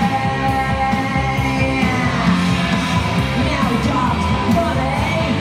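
Recorded rock song playing, with a singing voice over the band.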